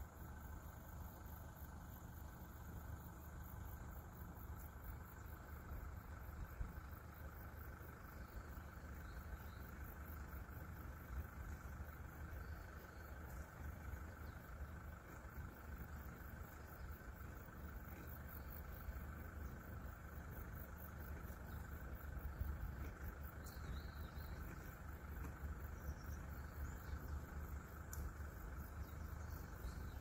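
Faint, steady trilling of insects, with a low steady rumble underneath.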